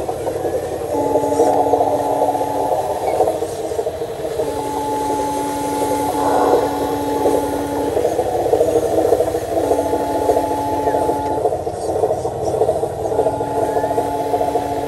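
Radio-controlled model truck's electric drive motor and gearbox running as it crawls over grass. A steady two-note tone comes and goes four times, each time for two or three seconds.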